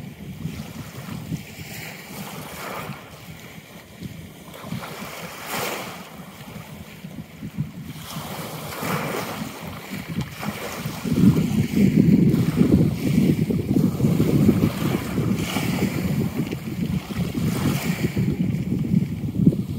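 Wind buffeting the microphone over sea waves, a rough low rumble that turns much louder about eleven seconds in, with brief hissy swells of wind or water along the way.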